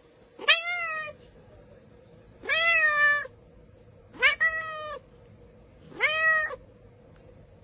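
Tabby cat meowing four times, about two seconds apart, each meow sliding up in pitch at the start and then held.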